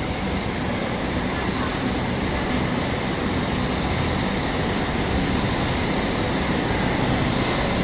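Steady running noise of a silicone cable production line's machinery, with a faint high-pitched tone pulsing about twice a second over a low hum.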